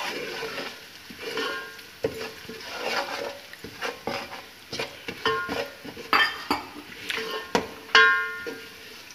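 A spoon stirring and scraping spices frying in oil in an aluminium pot, knocking against the pot again and again; several knocks ring briefly, the loudest near the end. A light sizzle of the garlic, ginger and chilli frying runs underneath.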